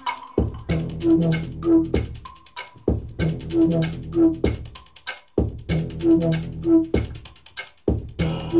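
Instrumental stretch of an electronic backing track: a drum-machine beat under a low repeating synth figure, the pattern starting over about every two and a half seconds.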